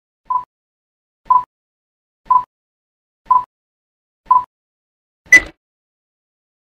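Countdown beeps from an animated clapperboard intro: five short, identical beeps a second apart, then a louder, higher beep with a sharp clap, as the clapper sticks snap shut.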